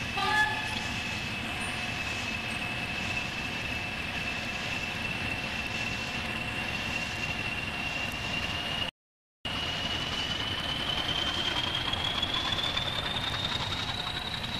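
Train running on rails: a steady rumbling noise with a high whine that holds, then slowly rises in pitch. A short pitched note sounds right at the start, and the sound cuts out for about half a second a little past halfway.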